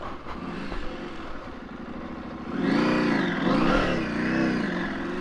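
KTM 890 Adventure R Rally's parallel-twin engine on a rough downhill dirt trail. It runs at low revs at first, then from about halfway the throttle is opened and closed several times, the revs rising and falling.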